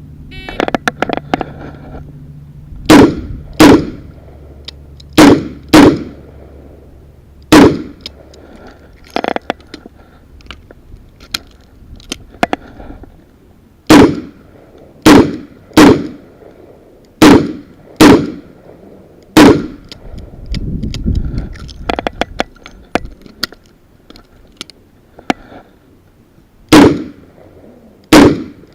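Smith & Wesson Model 66 revolver fired in strings of sharp shots, each with a short ring after it. Five shots come in the first several seconds; after a pause, six come about a second apart, then two more near the end. Fainter clicks and handling noise fall between the strings.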